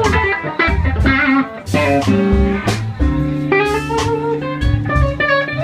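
Live blues band playing: an electric guitar lead with sustained, wavering notes over bass and drums.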